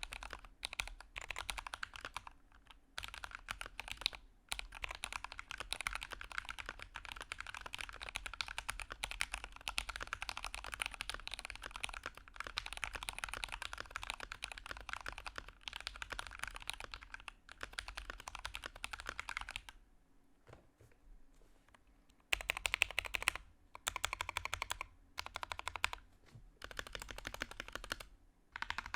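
Typing on a Drop ENTR mechanical keyboard with linear Gateron Yellow switches, hand-lubed with Krytox 205g0 and damped with plate and case foam: long runs of fast keystrokes. The typing stops for about two seconds about two-thirds through, then comes back in short bursts.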